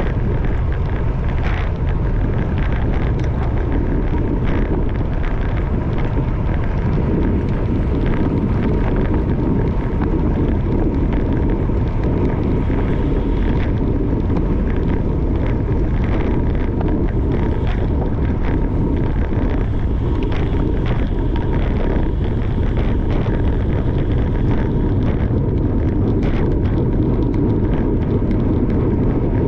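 Steady wind rush on the microphone, loud and unbroken, with a faint steady whine and scattered small clicks.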